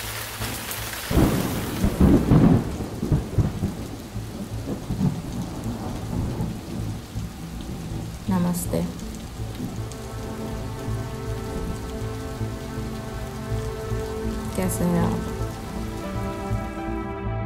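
Steady rain with a loud rumble of thunder about a second in that rolls and dies away over a few seconds. A soft, sustained music chord comes in under the rain over the second half.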